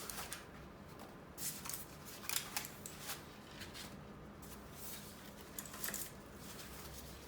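Packaging being handled while a keyboard is unboxed: scattered short rustles and light knocks at irregular intervals.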